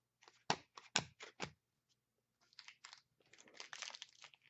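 Trading cards and their foil pack wrapper being handled: a few sharp snaps in the first second and a half, then crinkling and rustling through the second half.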